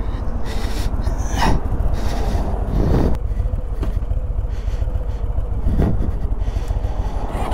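Motorcycle engine idling with a steady low rumble, with a few short knocks and scrapes about one and a half, three and six seconds in.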